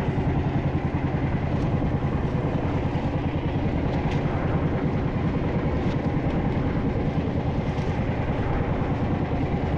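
Small fishing boat's engine running steadily with a fast, even throb.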